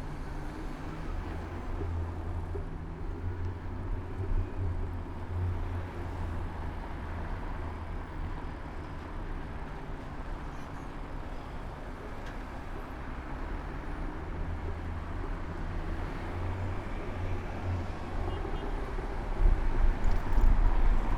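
Paris street traffic heard from a moving bicycle: a steady wash of car and bus engines and tyre noise with a low hum, swelling louder with a deep rumble near the end.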